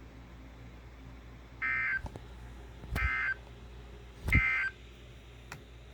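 NOAA Weather Radio SAME end-of-message tones: three short, harsh digital data bursts a little over a second apart, the last the loudest, signalling the end of a flash flood warning broadcast.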